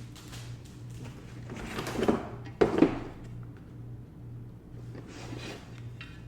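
Shelf-kit packaging being unpacked by hand: rustling, with two sharp knocks in quick succession about two and a half seconds in and more rustling near the end.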